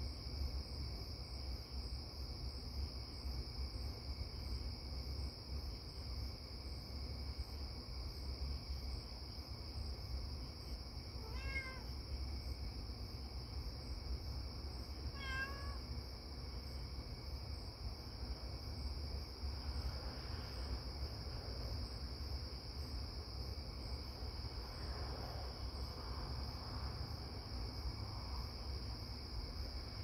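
Crickets chirring in a steady high chorus over a low background rumble, with a cat meowing twice, about eleven and fifteen seconds in, and fainter calls later on.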